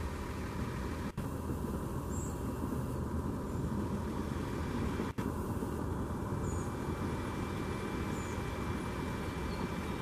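Steady low background rumble, like wind or distant traffic, with a few faint high chirps scattered through it. The sound drops out for an instant twice, about a second in and again about five seconds in. The peacock does not call.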